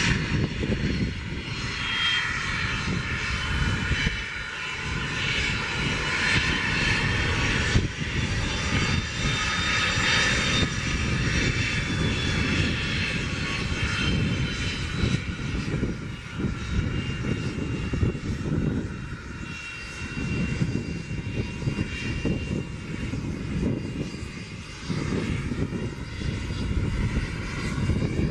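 Twin rear-mounted turbofan engines of a Cessna Citation Excel-type business jet running as it rolls along the runway: a continuous jet whine over a rumble, swelling and easing a little from moment to moment.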